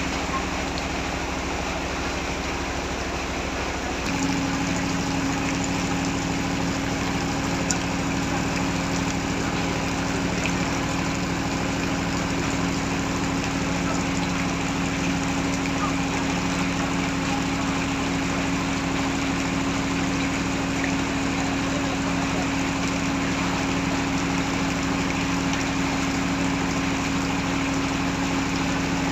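Heavy rain falling, with a steady motor hum running underneath that steps up slightly in pitch and level about four seconds in.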